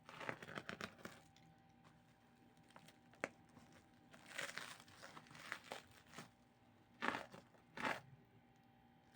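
A blunt pocket knife scraping and tearing at a keyboard box's tape and plastic wrapping, in short bursts of crinkling and ripping, with a sharp click about three seconds in and two louder rasps near the end.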